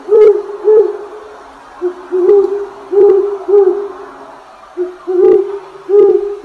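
A series of low hooting calls, one note after another in loose groups of two or three, most with a sharp click at the start of the note.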